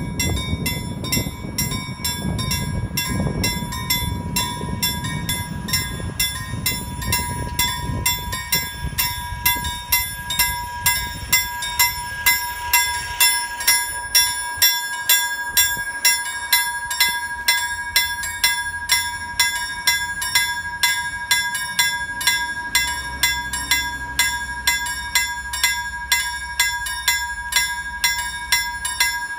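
Level-crossing warning bell ringing steadily at about one and a half strokes a second. For the first eight seconds or so an X52 electric train rumbles past on the rails, and the rumble then fades while the bell keeps ringing.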